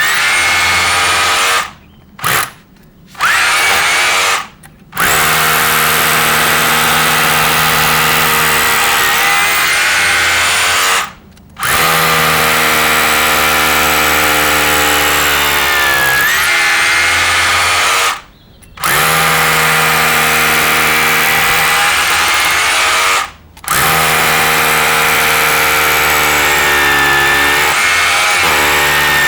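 Electric drill boring into the mortar joints around a brick (stitch drilling), its motor whine dipping and recovering in pitch as the bit bites. It stops briefly several times and starts again.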